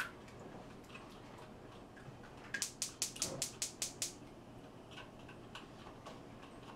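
Eggs being beaten in a bowl, the utensil clicking against the bowl's side in a quick even run of about nine clicks, some six a second, lasting about a second and a half a little over two seconds in. Lighter scattered clicks come before and after.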